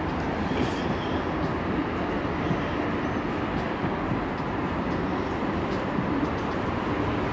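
Steady city traffic noise from a busy avenue: buses, cars and motorcycles running and passing in a continuous wash of engine and tyre sound.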